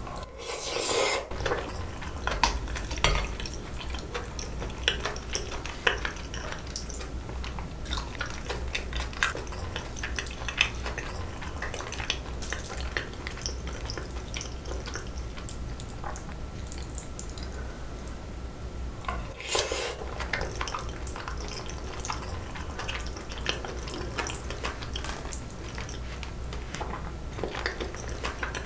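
A metal spoon clinks and scrapes against a glass bowl as the last sauced noodles are scooped up and eaten, in many short, irregular clicks.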